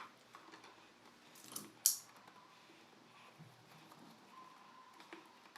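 Small clicks and scrapes of hands and a tool working on a Bluetooth speaker as its parts are tightened back in place, with one sharp scrape about two seconds in.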